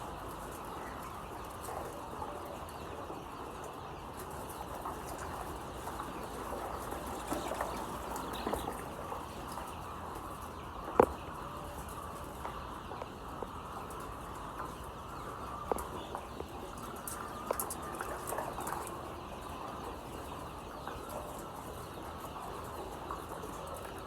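A flock of layer chickens in a poultry shed: a continuous busy mass of overlapping calls with many short chirps. A single sharp click about eleven seconds in stands out above it.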